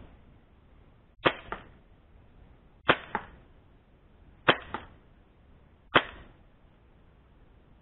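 HFC MAC-10/M11 gas blowback airsoft replica firing four single shots in semi-automatic, about one and a half seconds apart. Each shot is a sharp crack followed a moment later by a fainter click.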